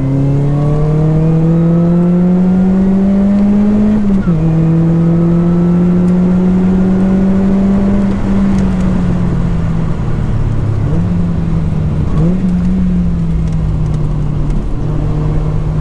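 Lotus Elise 220 Sport's supercharged four-cylinder engine, breathing through a 2bular H1 silencer, pulling hard with the revs climbing, then an upshift about four seconds in. After the shift it runs at fairly steady revs, with brief lifts and pickups around the middle and near the end.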